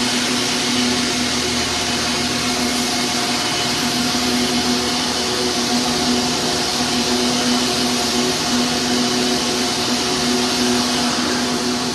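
Circular knitting machine running at speed: a steady mechanical hum with a few fixed low tones under a strong, even high hiss.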